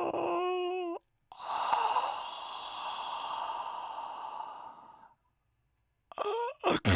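A person's exaggerated sleep noises: a brief wavering moaning tone, then a long breathy sighing exhale of about four seconds. After a short silence comes a quick vocal sound and a loud sudden breath near the end.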